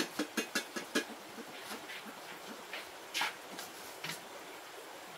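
Light clicks and taps of small household objects being handled, about six in quick succession in the first second. A little past the middle comes one louder sound that falls in pitch, and a single click about a second later.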